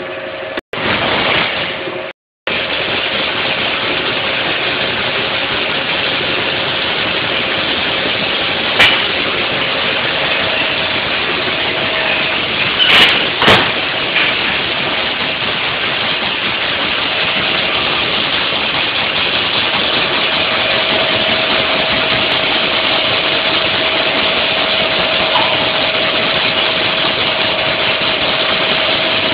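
Production-line machinery running: a steady, dense mechanical din with a faint steady hum through it, and a few sharp clicks about a third of the way in and near the middle.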